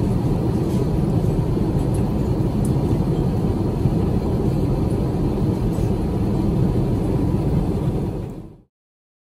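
Steady low cabin roar of an Airbus A350-900 in flight: engine and airflow noise heard from inside the passenger cabin. It fades out quickly about eight seconds in.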